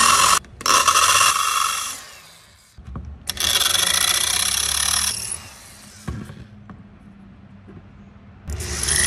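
Corded electric drill cutting into a stainless steel rivet set in an aluminium Sunfish mast, drilling the rivet out. It runs in bursts with a high grinding whine: two short runs in the first two seconds, a longer run from about three to five seconds in, and again just before the end.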